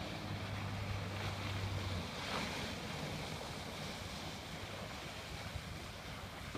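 A Yamaha F115 four-stroke outboard runs with a steady low hum that drops away about two seconds in as the boat throttles back off the plane. Wind on the microphone and water wash continue under it.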